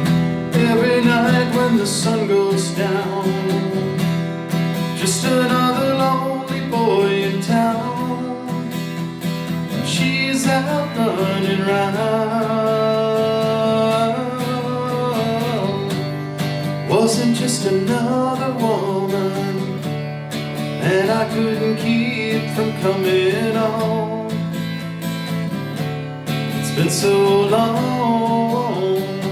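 A man singing a country-rock cover song to his own strummed guitar, holding one long note about halfway through.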